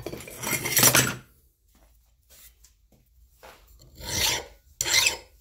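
Hand filing to deburr a freshly drilled and tapped metal part: one long rasping stroke, a pause of about two seconds, then two shorter strokes.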